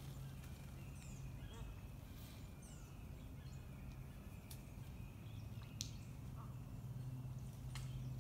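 Faint outdoor ambience: a few short, high, falling bird chirps in the first couple of seconds, a steady low hum underneath, and a few light clicks in the second half.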